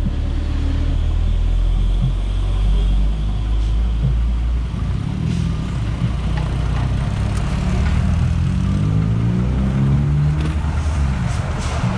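A vehicle's motor rumbling low and accelerating, with a whine that climbs in pitch from about eight seconds in and a few sharp clicks near the end.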